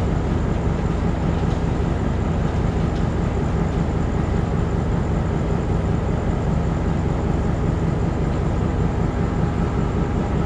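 Diesel locomotive engine running with a steady low hum as the locomotive approaches slowly along the platform track.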